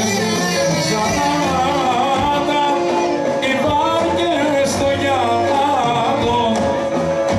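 Live Greek festival dance music played by a band with a singer, amplified through loudspeakers.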